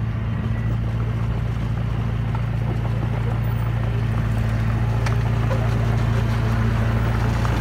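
Small crawler bulldozer's engine running at a steady pitch as the machine tracks over loose soil.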